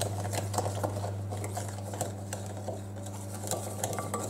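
Wooden spoon stirring a thick melted-chocolate and sugar mixture in a glass bowl: irregular scraping and light knocks of the spoon against the glass, over a steady low hum.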